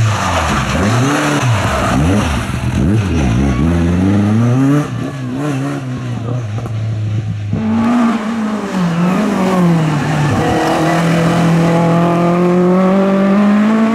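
Rally car engines revving hard, the pitch swinging quickly up and down through gear changes and lifts. About halfway through the sound changes abruptly to an engine pulling steadily, rising in pitch toward the end.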